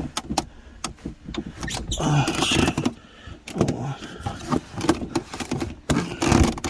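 Irregular clicks, knocks and rustling of hands working at the plastic center console trim of a Ford Expedition while the console is being lifted, with a few louder scuffing patches.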